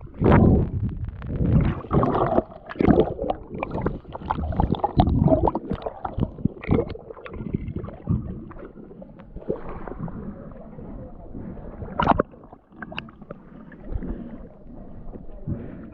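Water sloshing and splashing in irregular bursts, with some gurgling.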